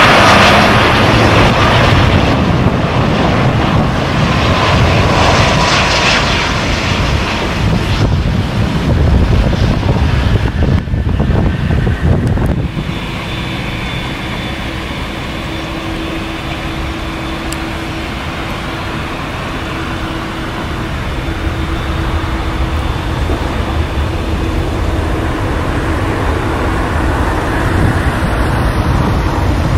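Jet airliner engines, loud for about the first twelve seconds and easing off. The noise then drops suddenly to a steadier, quieter engine hum with a faint steady whine, which builds again near the end.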